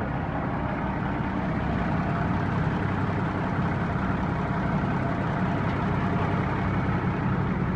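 Heavy diesel dump-truck engine running steadily, a low even drone with no change in pitch or level.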